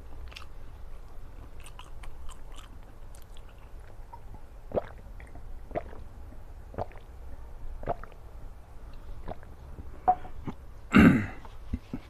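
Close-up chewing and mouth sounds of a person eating, with small wet clicks and a stronger click about once a second in the middle. A short, louder sound comes near the end.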